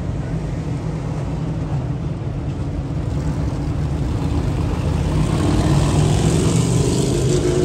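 Dirt modified race cars' V8 engines running at speed around the track, a steady engine drone that grows louder about five seconds in.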